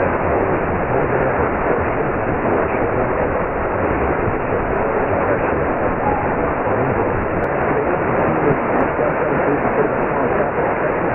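Steady AM radio noise from a Perseus software-defined receiver tuned to 1660 kHz: a weak, distant station faded down under the hiss, with no words coming through.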